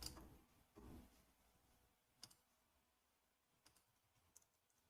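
Near silence broken by a few faint, sparse clicks, about one every second or so.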